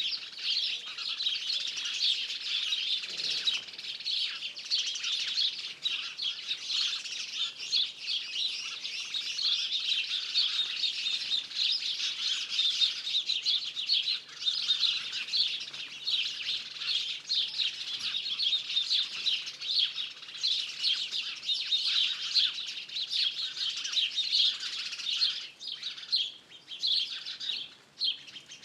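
Dense chorus of songbirds singing and chirping, many overlapping calls with no break.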